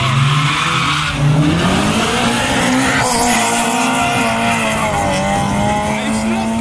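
Two street cars launching side by side in a drag race, engines revving hard with tyre squeal off the line. The engine note rises, drops at gear changes about a second and about three seconds in, then holds a steady higher pitch as the cars pull away down the strip.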